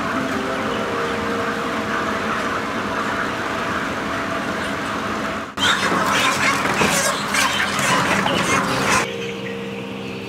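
Broiler chickens in a crowded shed, a din of birds over a steady hum. About five seconds in it turns suddenly louder, with flapping, clattering and squawking as the birds are grabbed and thrown into plastic crates, and near the end it drops back to a quieter chatter of young chicks.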